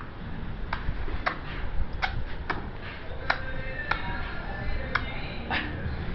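A small child making a series of sharp mouth clicks, about one every half second to a second at an uneven pace, with faint music in the background.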